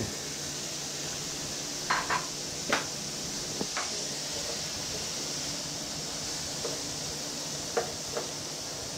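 Chopped chayote and carrots sautéing in a skillet, giving a steady sizzle, with a few short clinks and knocks of a utensil against the pan and the dishes beside it.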